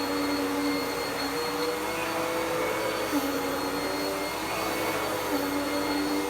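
Dirt Devil PowerMax Pet upright vacuum running steadily. Its motor tone shifts slightly down and back up every couple of seconds as the load changes, with a small tick about three seconds in.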